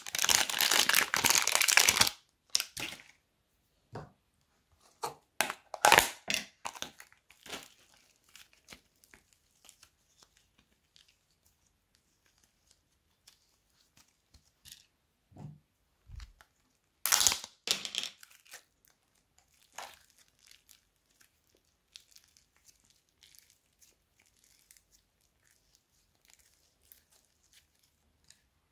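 Thin plastic bag crinkling as it is squeezed and peeled off soft clay, a dense crinkle for the first two seconds, then scattered short crinkles and a few soft thumps as the clay is handled and pressed.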